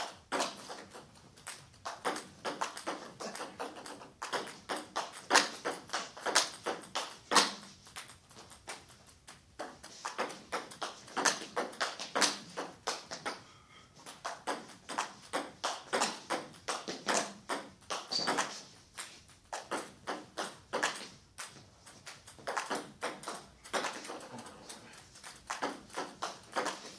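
Table tennis ball being hit back and forth, sharp clicks of the ball on the bats and the table at two or three a second, with a brief break about halfway through.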